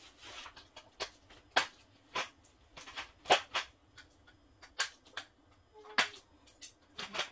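Sharp clicks and knocks, about a dozen at irregular intervals, from play pen parts being handled: plastic connectors, metal poles and scissors.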